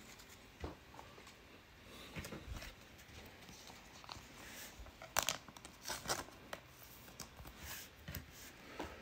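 Faint handling of a stack of trading cards: soft slides and taps as cards are shuffled through and laid on a table, with a few sharper clicks about five seconds in.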